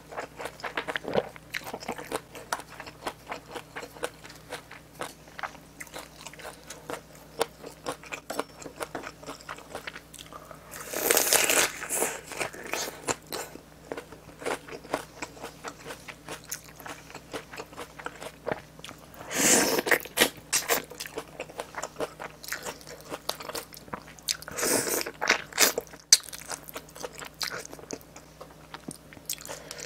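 Close-miked eating of spicy braised pork backbone: steady wet chewing and mouth clicks, with three louder crunching bites about 11, 20 and 25 seconds in.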